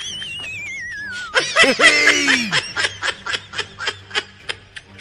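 Cartoon sound effects: a wobbling whistle that slides down in pitch for about a second and a half, then a canned snickering laugh in quick repeated pulses.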